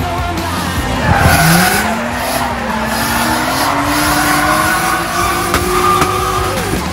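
Drift cars in a tandem drift: an engine held high in the revs, its note climbing steadily from about a second in, over the squeal of tyres sliding sideways.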